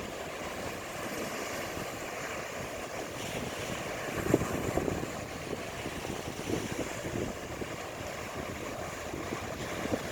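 Sea waves washing onto a beach, with wind buffeting the microphone in irregular low gusts, the strongest about four seconds in.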